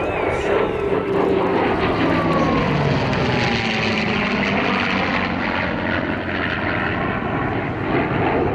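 Propeller aircraft flying past, its engine drone falling in pitch as it passes.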